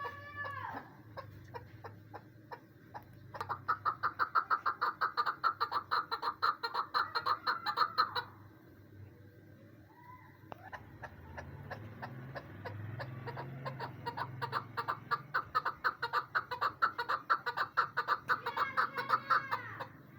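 Female chukar partridge calling: two long runs of rapid clucking notes, about five a second. The first run lasts about five seconds; the second starts about ten seconds in and runs almost to the end. Short gliding call notes come near the start and between the runs.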